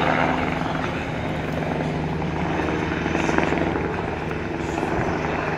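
Eurocopter Tiger attack helicopter's twin turboshaft engines and rotor running with a steady hum.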